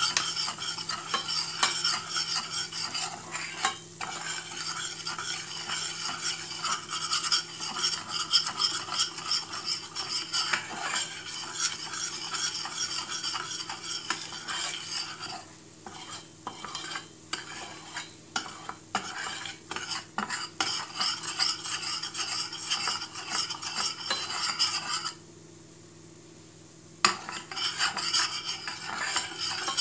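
Metal spoon stirring and scraping against a stainless steel pot in quick, continuous strokes, with light sizzling from corn flour frying in melted butter: the flour being toasted in butter as the first stage of muhlama. The stirring slows in the middle and stops for about two seconds near the end, then resumes.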